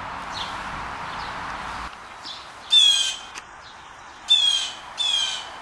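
Blue jay giving three harsh, squawking calls, the first the longest. Before them a rushing noise cuts off abruptly about two seconds in.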